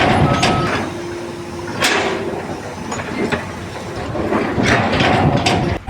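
Machinery running, with repeated sharp metal clanks and knocks and a few short steady tones.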